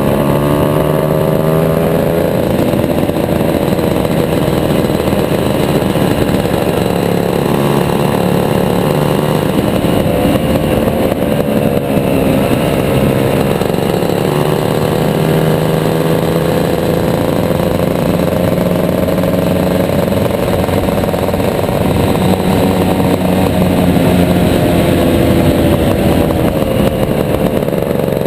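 Shifter kart's two-stroke racing engine running hard under load, its pitch rising and falling as it speeds up and slows through the corners.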